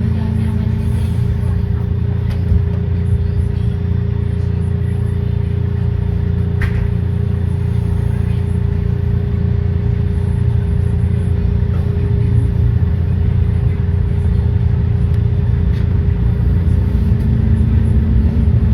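SEPTA Kawasaki light-rail trolley running, heard from inside the car: a steady low rumble of wheels and running gear with a steady motor hum. A single sharp click comes about seven seconds in.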